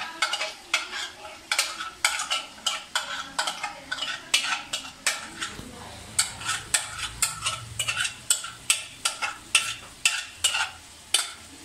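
Metal spoon scraping a thick paste out of a bowl into a cooking pot, in quick repeated strokes, a few a second.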